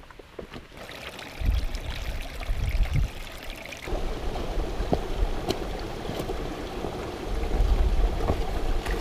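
Wind gusting over the microphone with a low rumble, footsteps on a stony track, and, from about four seconds in, the steady rush of running water.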